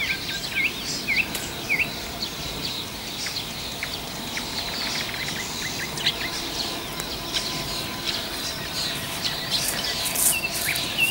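Several small birds chirping and calling over a steady outdoor background, with a run of short repeated swooping notes about a second in. A few sharp clicks and rustles near the end.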